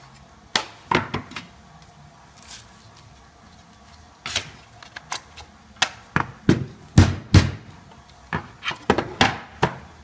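Wooden boards and a metal corner bracket knocking on a workbench as cedar panels are handled and fitted together: about a dozen sharp knocks, a couple near the start and most in the last six seconds.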